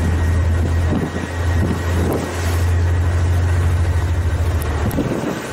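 Steady low drone of a warship's engines and machinery, heard on deck with wind noise on the microphone; the drone cuts off abruptly near the end.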